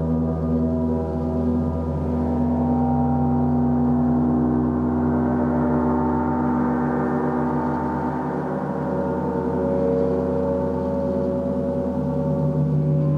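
A gong sustaining a continuous, dense wash of many overlapping tones. No separate strikes stand out, and the higher tones swell in the middle and fade again over a steady low tone.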